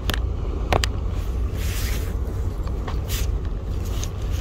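Wind rumbling steadily on the microphone, with a few scattered sharp clicks from the rod and reel being handled.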